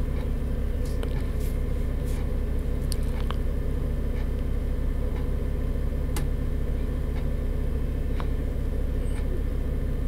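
Doosan 4.5-ton forklift's engine running steadily, heard from the driver's cab, with a few faint light clicks scattered through it.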